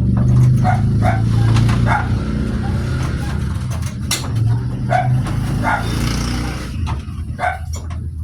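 A dog barking several times in short single barks, over a steady low hum.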